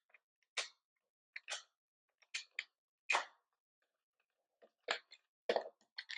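Wooden puzzle-box parts being prised and worked by fingernail, giving faint, irregular clicks and scrapes of wood, some in quick pairs.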